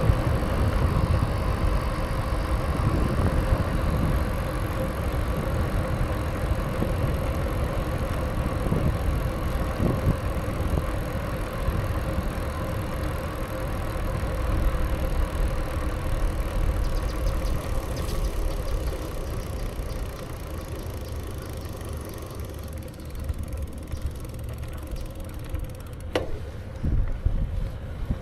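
BMX bike rolling along pavement: a steady tyre hum under a low rumble of wind on the microphone, dropping lower in the last several seconds, with a sharp click near the end.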